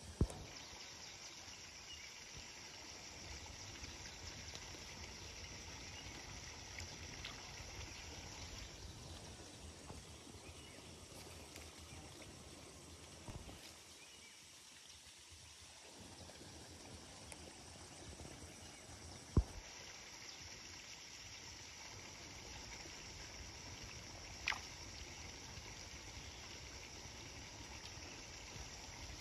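Faint outdoor ambience with a steady hiss, broken by three sharp knocks: one just at the start, the loudest about two-thirds of the way through, and a smaller one a few seconds after that.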